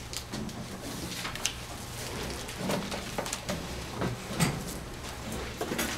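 Classroom packing-up noises: scattered clicks, knocks and rustles of things being handled, a few a second or less, over a steady low hum.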